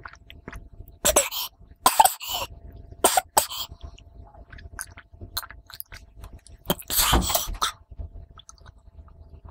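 A boy coughing and clearing his throat between sips of water, his throat burning from spicy food: three short coughs in the first few seconds and a longer bout about seven seconds in.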